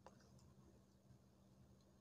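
Near silence with a steady low hum, and one faint click right at the start.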